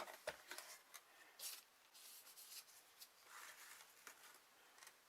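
Faint clicks and light scraping of metal parts and tools being handled: a sharp click at the start, then soft rubbing and scratching sounds.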